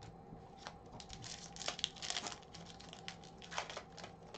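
Shiny foil wrapper of an Upper Deck Series One hockey card pack being torn open and crinkled by hand. It makes a run of sharp crackles, loudest around the middle.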